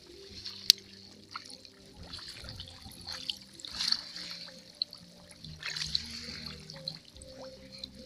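Swamp water sloshing and trickling in a few swells, the biggest about four and six seconds in, with a few sharp clicks.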